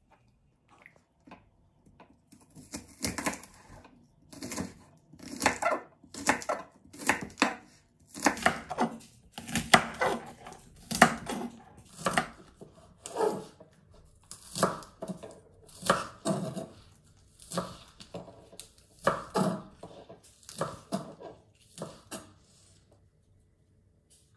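A knife chopping bok choy on a wooden cutting board: short runs of quick chops, a burst every second or so, starting about two seconds in and stopping shortly before the end.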